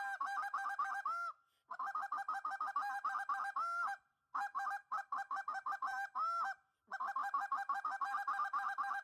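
Short-reed goose call blown fast in four runs of rapid clucks, about eight a second, each run ending in a longer drawn honk, with short breaks between runs: the 'European Siren' technique for running the traffic of a flock of geese.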